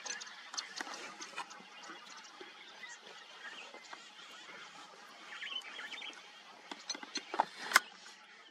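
Short, high chirping animal calls with scattered clicks, and a few sharp knocks near the end, the last one the loudest.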